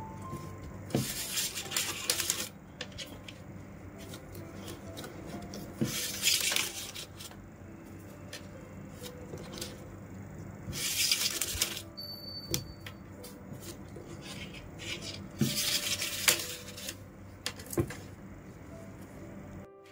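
Strands of plastic (PE) rattan being worked by hand in basket weaving: four rasping, swishing rubs about a second long, a few seconds apart, as a strand is drawn through the weave, with light clicks and taps of the stiff strands in between.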